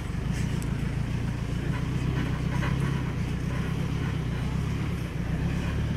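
Off-road safari jeep's engine running steadily under way on a rough dirt track, heard from on board, with a few light knocks and rattles.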